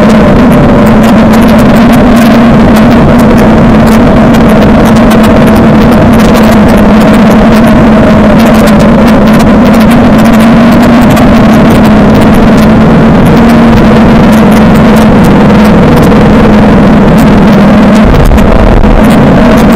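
Suzuki DL650 V-Strom's V-twin engine running at fairly steady revs while being ridden off-road, with many sharp clicks over it. A deep rumble comes in near the end.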